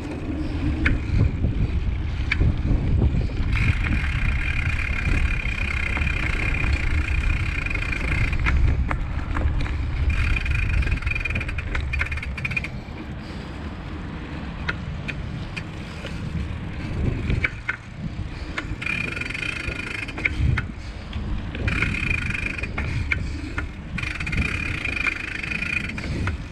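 Wind buffeting a handlebar-mounted action camera's microphone while cycling, a heavy low rumble mixed with tyre noise on pavement, easing off in the second half as the riding slows. A steady high buzz comes and goes several times, with a few scattered clicks.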